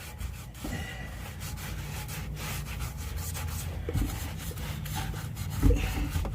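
Hand sanding of a rusty exhaust pipe: an abrasive rubbed back and forth in repeated rasping strokes, scuffing off surface rust so paint will adhere. A low thump comes near the end.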